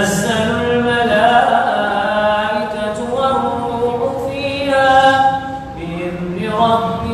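A man's voice reciting the Quran in a slow melodic chant, holding long ornamented notes that waver up and down, with short pauses for breath between phrases.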